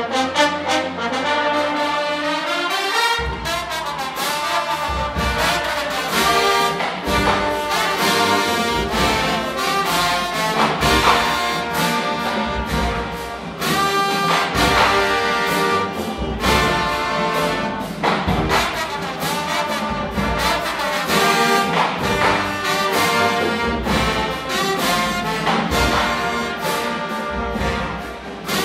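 Marching band brass section (sousaphones, trumpets, saxophones) playing a loud, sustained tune, with a strong regular beat coming in about three seconds in.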